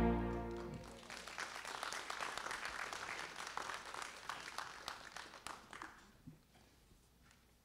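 The song's final sustained chord dies away in the first second, then a congregation claps for about five seconds, the applause thinning out and fading away near the end.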